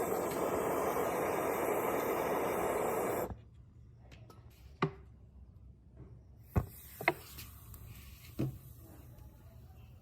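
A steady, loud hiss that cuts off suddenly a little over three seconds in, followed by a few light, separate knocks and clicks.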